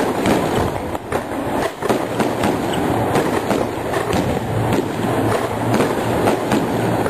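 Fireworks going off at close range: a dense, unbroken crackle of many small bangs and pops.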